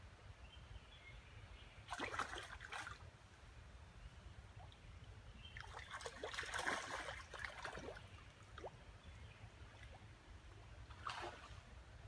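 Floodwater trickling and lapping around debris and saplings, in faint splashy spells: a short one about two seconds in, a longer one in the middle and another near the end.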